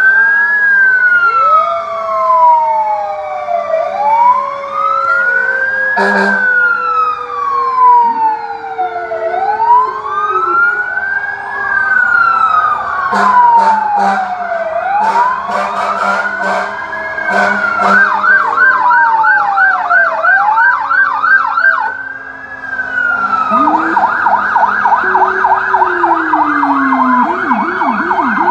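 Several fire trucks' sirens sounding together. One wails up and down about every five and a half seconds, switching to a fast yelp in the middle and near the end, while a lower siren tone slowly falls, with a few short sharp blasts in the middle.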